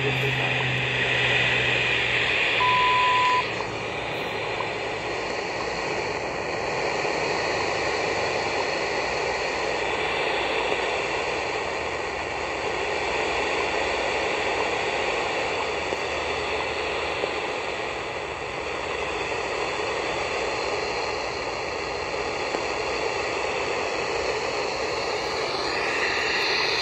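Shortwave static hissing steadily from a Tecsun GR-168 portable radio's speaker as it pulls in the weak WWV time signal on 15 MHz. About three seconds in, a single 1 kHz beep sounds for under a second: WWV's minute-mark tone.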